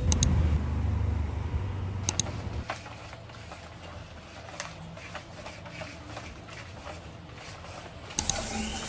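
A low outdoor city rumble, then after about two and a half seconds a small vacuum cleaner running quietly, its floor head scraping and clicking over ceramic floor tiles.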